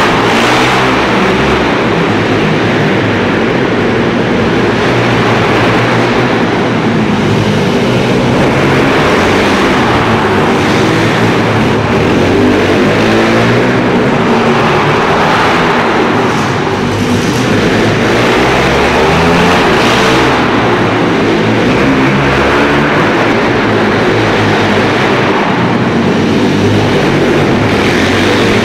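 Pit bike engines revving up and down, loud and continuous, the pitch rising and falling every few seconds as the bikes accelerate and back off.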